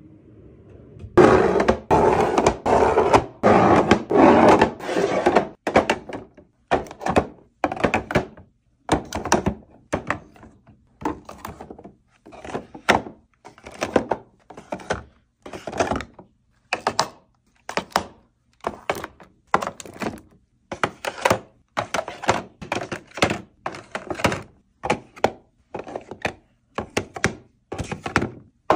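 Boxed toothpaste and other toiletries being set one by one into clear plastic organizer bins in a wooden drawer: a steady run of light taps and thunks, about one to two a second. The knocks are loudest and come thickest in the first few seconds.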